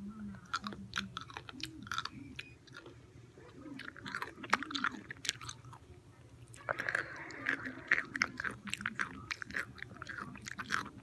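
A small pickle being bitten and chewed close to the mic, with wet, crisp crunches throughout that come thicker and louder from about seven seconds in.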